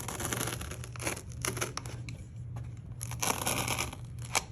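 Kaizen foam tearing as it is cut and pulled out by hand: scratchy tearing in several short bursts, the longest about three seconds in, with a sharp click near the end.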